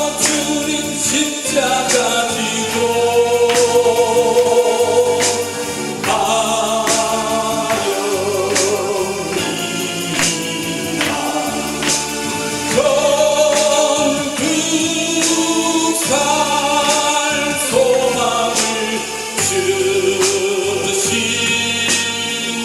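A man singing a Korean gospel hymn into a microphone, accompanied by an electronic keyboard with a steady beat.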